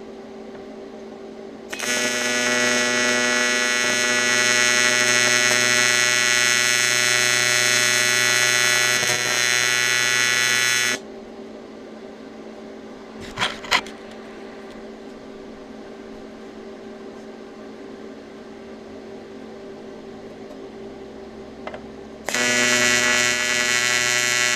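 AC TIG welding arc on aluminium at 136 amps and 120 Hz, laying tacks. Its loud, steady buzz lasts about nine seconds, then gives way to a low machine hum with two short clicks. The buzz starts again a couple of seconds before the end.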